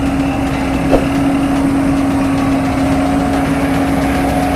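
Sakai single-drum vibratory road roller's diesel engine running steadily as the roller drives slowly over a dirt road, a constant droning hum over a low rumble. A single short knock about a second in.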